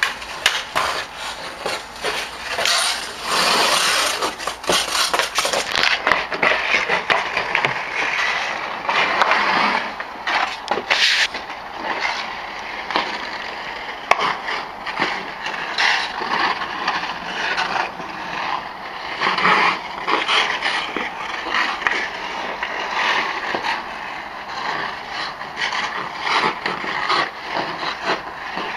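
Hockey skate blades scraping and carving across outdoor rink ice, with frequent clicks of a hockey stick working a puck and one sharper hit about eleven seconds in.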